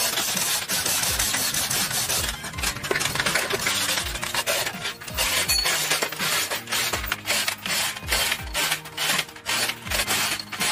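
Rough, repeated scraping and rubbing sounds over background music with a low beat.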